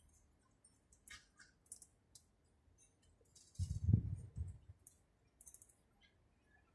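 Timbrado canaries feeding: scattered short, high clicks and pecking tics. One louder, dull low thump about halfway through.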